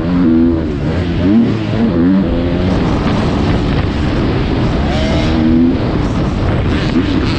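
Motocross bike engine running at race pace, its note rising and falling repeatedly with the throttle.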